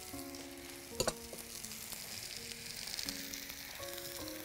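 Hot oil sizzling steadily in a frying pan as finger fries cook, with a single knock of a utensil on the pan about a second in. Soft background music plays underneath.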